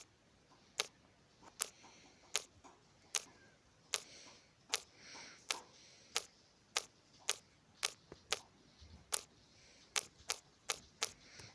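A series of small, sharp pops from a miniature fireworks display, about one or two a second and quickening near the end, with a faint fizzing hiss between some of them.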